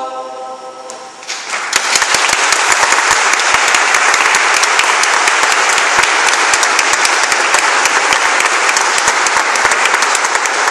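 A choir's last held chord fading away, then audience applause breaking out about a second in and continuing steadily.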